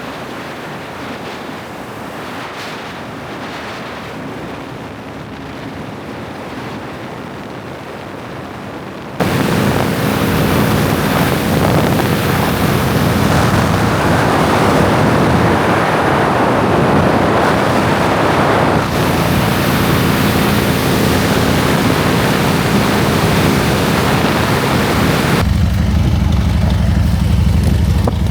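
Harley-Davidson FXR motorcycle riding on the road, with heavy wind noise on the microphone over the engine. The sound cuts between takes: quieter at first, much louder wind noise from about nine seconds in, and near the end the V-twin engine's low, even note comes through strongly.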